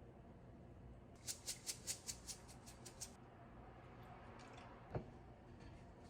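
A quick run of about ten light clicks, roughly five a second, lasting about two seconds, then a single click a couple of seconds later.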